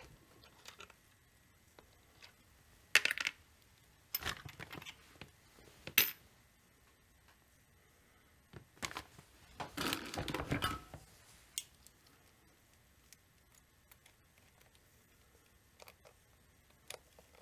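Small metal parts and hand tools clinking and clattering against a chainsaw crankcase as it is taken apart: several short clatters and sharp clicks, the longest jangle a little past the middle.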